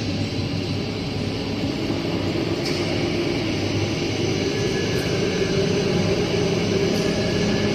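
Steady mechanical drone with a low hum, from the hydraulic wheelset press running.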